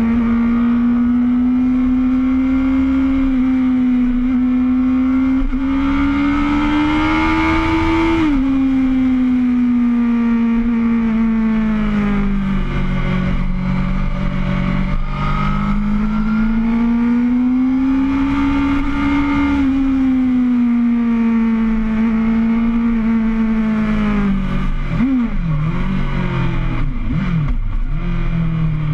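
Sport motorcycle engine running hard at high revs, its pitch rising and falling with the throttle. The pitch drops sharply about eight seconds in, like a gear change, and there are quick rev blips near the end.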